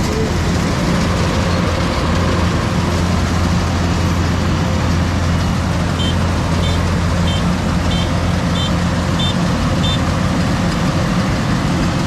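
Heavy engine running steadily at a constant low pitch. About six seconds in, a reversing alarm sounds about seven short, evenly spaced high beeps.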